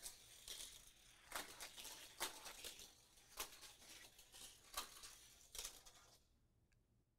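Hot Wheels Mad Splash die-cast car rolling along gravity-powered orange plastic track and through kicker loops: faint rattling with a sharp click about every second, going quiet about six seconds in.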